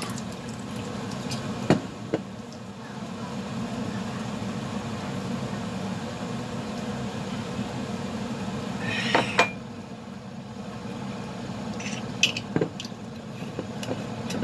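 A few light clinks and knocks of a mug and kitchenware handled on a counter, the loudest just after nine seconds in, over a steady low hum.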